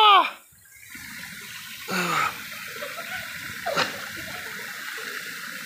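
Waterfall pouring down a rock face, a steady rushing hiss. A shout trails off at the very start, and there are a couple of brief calls from a person about two seconds in and near four seconds.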